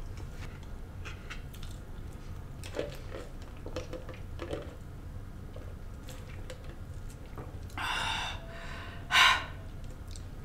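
A person chewing fried food close to the microphone, with a few faint crunches and clicks, then two louder short noisy sounds near the end, the second the loudest.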